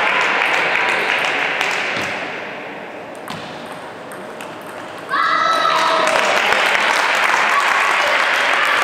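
Table tennis match sound: applause dies away, then there are a few sharp ticks of the celluloid ball during a quiet rally. About five seconds in, a high voice cries out and applause breaks out again.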